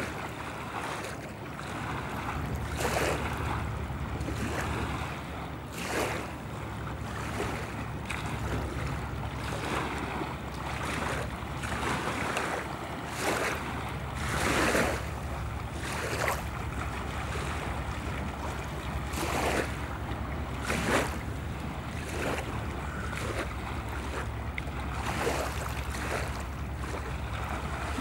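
Rhine river water splashing and lapping in irregular surges every second or two, over a steady low rumble of wind on the microphone.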